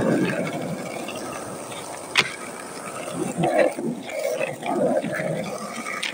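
Skateboard wheels rolling over rough asphalt with an uneven rumble, and one sharp clack of the board about two seconds in.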